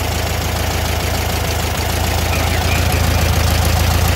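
Volkswagen Thing's air-cooled flat-four engine idling steadily while its idle speed is being set at the carburetor's idle-speed screw. The idle grows a little louder over the last couple of seconds.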